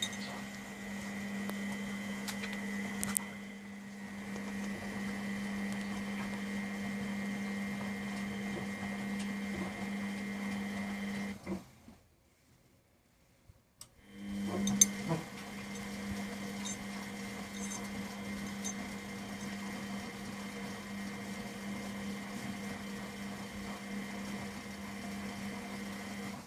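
Miele Professional WS5426 washing machine running with a steady motor hum and a faint high whine. The hum stops for about two seconds near the middle, then starts again with a short knock, the start-stop pattern of the drum turning during a wash cycle.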